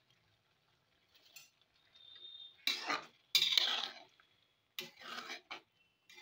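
Steel spatula scraping a metal kadai while thick pineapple chutney is stirred: four short scraping strokes with pauses between, starting a little before halfway.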